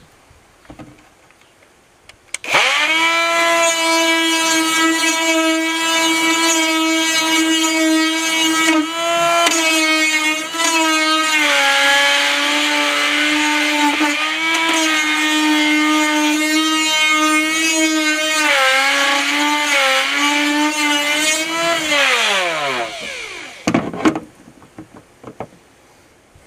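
Die grinder with a sanding drum spinning up about two seconds in and running at a steady high pitch as it grinds out the edge of a hole so an inspection-hatch cap will fit. The pitch dips several times as the drum bites, then winds down near the end, followed by a few light knocks.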